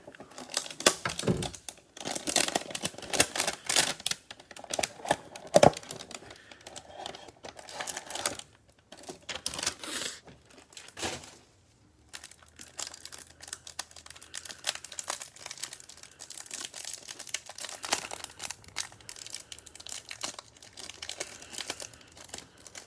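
Cardboard trading-card hanger box being torn open and its cellophane-wrapped stack of cards handled and unwrapped, with plastic wrapper crinkling under gloved hands. The crinkling and tearing is loudest in the first several seconds and lighter later on.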